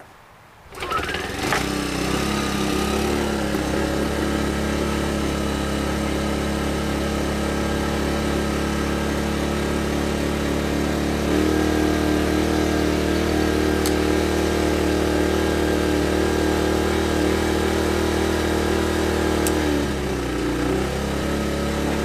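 Sportsman 1000 inverter generator starting up and running steadily. Its sound rises to full within about a second, steps up louder with a change in pitch about 11 seconds in, and dips back near the end.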